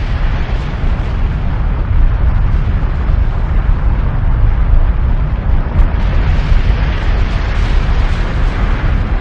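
Volcanic eruption sound effect: a continuous, heavy low rumble with dense crackling on top, steady and without a break.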